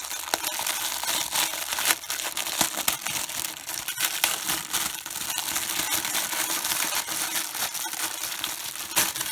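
Packaging crinkling and crackling as it is handled and opened to unwrap a small printer case, with many small crackles throughout.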